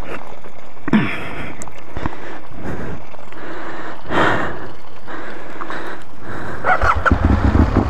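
Handling and rustling noises over a steady rushing noise, then about seven seconds in the Aprilia Tuono 1000R's V-twin engine is started and runs with a low, uneven pulse.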